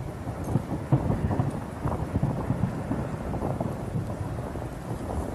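Volcanic eruption: a lava fountain giving a low, continuous rumble with dense, irregular crackling pops.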